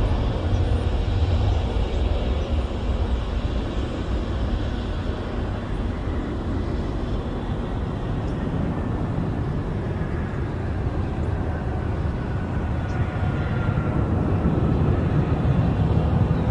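Twin-engine regional jet airliner landing and rolling out on the runway: a steady jet engine rumble, with a thin turbine whine that slowly falls in pitch through the second half.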